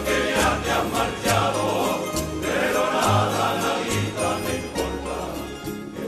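Background music: an instrumental passage with a steady beat and a bass line that changes note about once a second.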